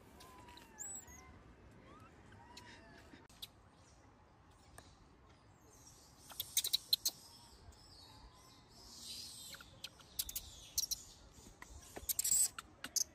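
Baby macaques calling and scuffling. A few short arched coos come in the first few seconds. Then, from about six seconds in, comes a hissy high-pitched squealing with sharp clicks, loudest around seven seconds and again near the end.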